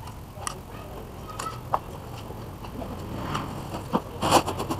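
Corrugated plastic cable conduit being handled and pushed into place: scattered light clicks, rattles and rustles, a few at a time.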